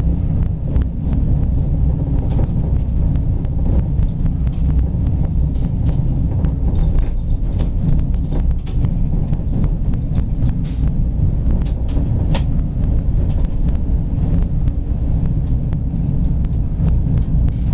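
Tram running along street track: a steady low rumble with frequent light clicks and knocks.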